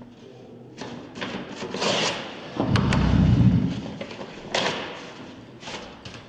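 A sheet of paper being torn up in several short rips. About halfway through there is a heavy, dull low thud and rumble, louder than the rips.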